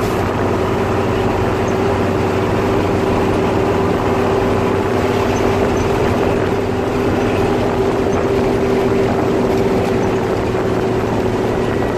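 Hino 1J bus diesel engine running steadily under load at highway speed. It is a constant, even drone with a strong held tone, over road and wind noise.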